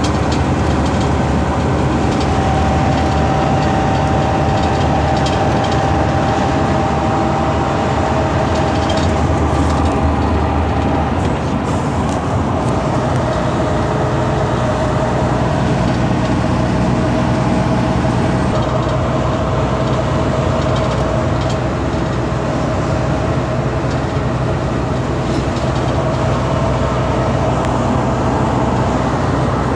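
Volvo truck's diesel engine running steadily under way, heard from inside the cab with road noise. Its hum drops slightly in pitch about eleven seconds in.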